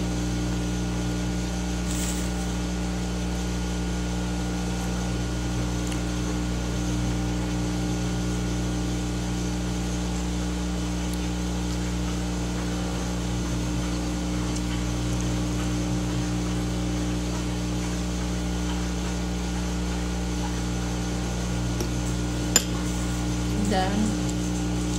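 Steady mechanical hum of a household appliance, made of several held low tones. A single sharp click or clink comes near the end.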